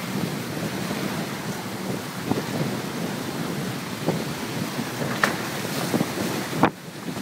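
Wind buffeting the microphone over a steady rush of water along the hull of a sailing carbon catamaran, with several short sharp splashes as waves slap the hull. The loudest slap comes near the end, after which the sound briefly drops.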